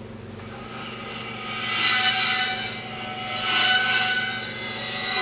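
Swelling whooshing sound with many high ringing tones in it, rising and fading three times, over a low steady hum.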